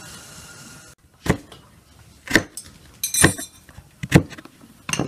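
Wavy crinkle-cut knife chopping raw carrot into slices on a wooden cutting board, a sharp chop about once a second. A faint steady hiss comes before the chopping.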